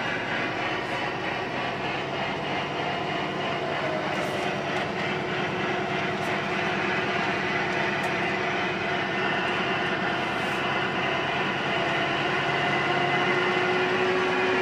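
Tractor-trailer's engine and road noise heard inside the cab: a steady drone with a held hum, slowly getting louder.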